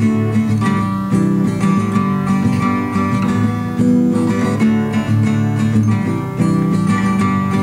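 Acoustic guitar strummed in an instrumental break between sung lines, the chords changing every second or so.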